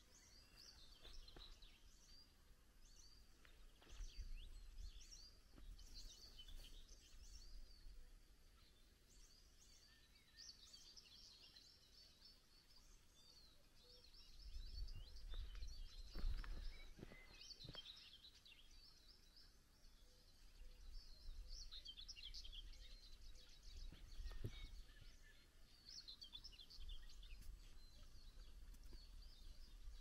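Several songbirds singing: a steady run of short, high chirps and trills, faint overall, over a low rumble that swells a few times.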